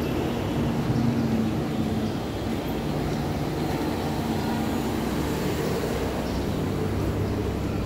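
A steady low engine hum with a few held tones, over general street noise.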